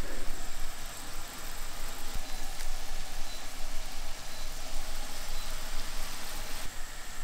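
Steady hiss and hum from a stainless steel pan of water simmering on the stove, with fish-paste balls being dropped into it.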